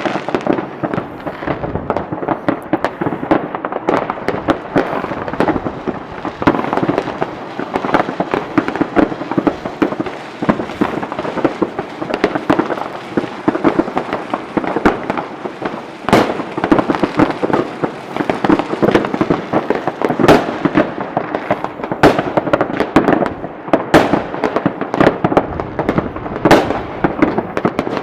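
Fireworks display: a continuous barrage of crackling and bangs, with louder sharp reports scattered throughout.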